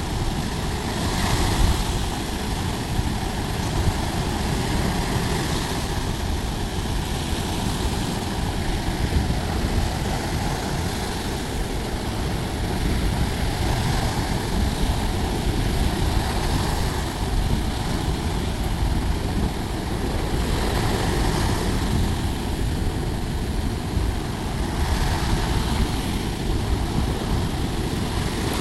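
Sea waves washing onto a beach, with a steady rush that swells every few seconds, under heavy wind rumble on the microphone.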